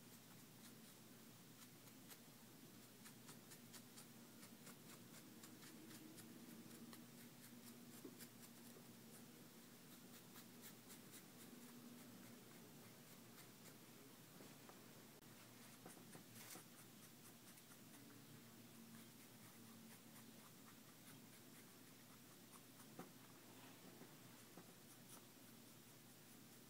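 Faint scratching of a Sharpie permanent marker colouring cotton T-shirt fabric in many short strokes, with one sharper tap a little past halfway.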